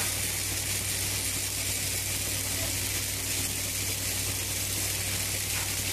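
Automatic wire-fed pipeline welding machine welding a pipe girth joint, its arc sizzling steadily over a steady low electrical hum.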